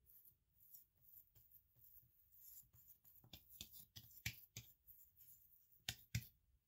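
Hands pressing, patting and shaping a ball of soft naan dough on a floured worktop: soft rubbing and light slaps, with a few louder pats about four seconds in and again near the end.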